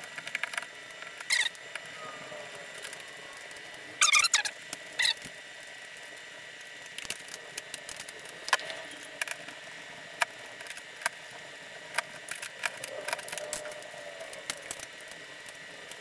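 Light switches being unscrewed and pulled from a wall electrical box: scattered small clicks, scrapes and squeaks of a screwdriver and metal switch parts, with a brief loud rattle of clicks about four seconds in.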